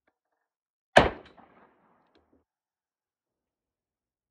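A single shot from a Model 206 .38 Special revolver about a second in, sharp and loud, followed by a short echo trailing off.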